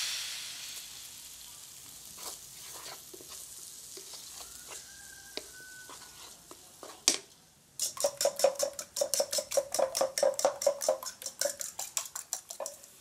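Chopped tomatoes and onions sizzling in a frying pan while a wooden spatula stirs and scrapes through them. About eight seconds in this gives way to a fork beating eggs in a bowl, clicking rapidly against the side at about six strokes a second.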